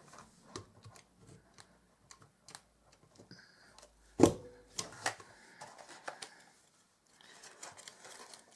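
Crop-A-Dile hand hole punch being handled and squeezed through folded card: light clicks and paper rustles, with one sharp metallic clack about four seconds in and a smaller one about a second later as the punch goes through.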